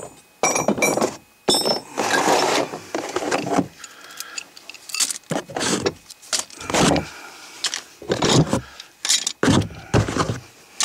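Irregular knocks, scrapes and light clinks of hand tools and materials being handled and set down close to the microphone.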